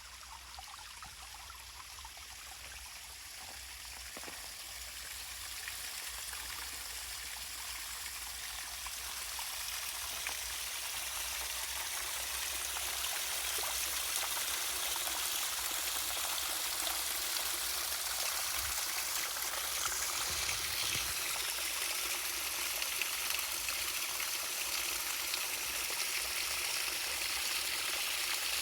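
Waterfall: a steady rush of falling water, growing louder over the first ten seconds or so and then holding even.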